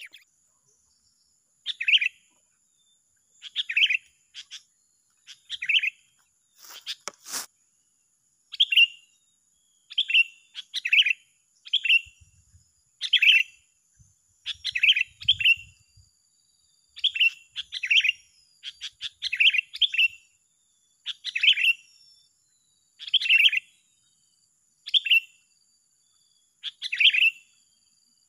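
Sooty-headed bulbul calls: short bright chirps repeated every second or two, sometimes in quick pairs. A single sharp knock comes about seven seconds in.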